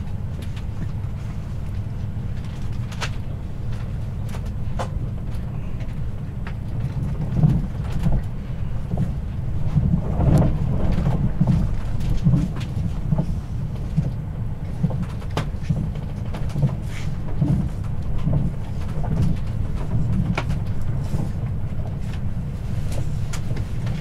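Passenger train running along the track, heard from inside the carriage: a steady low rumble with scattered clicks and knocks from the wheels on the rails, louder for a few seconds around ten seconds in.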